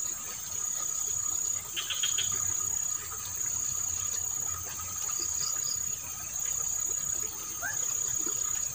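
An insect trilling steadily on one high, thin note, in phrases of about a second with short breaks between them.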